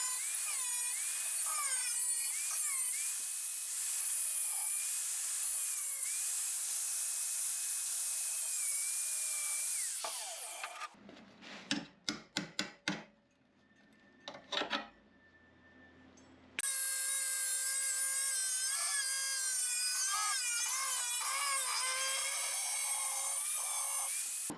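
Electric drill boring small holes through 2.3 mm steel plate, the bit squealing with a high, wavering whine. About eleven seconds in the drilling stops for a few seconds of clicks and knocks, then starts again.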